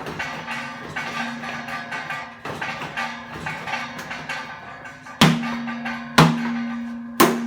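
An old steel water heater tank being struck and kicked, its shell ringing with a low hum after each blow; lighter hits for the first few seconds, then three hard hits about a second apart near the end.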